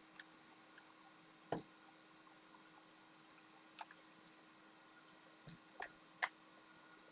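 Mostly quiet bench with a faint steady hum. Four light, isolated clicks and taps come from small tools and parts being handled; the sharpest is about one and a half seconds in.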